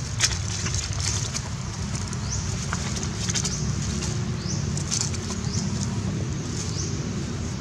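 Outdoor ambience: a steady low rumble with several short, rising high chirps from birds and a few faint clicks.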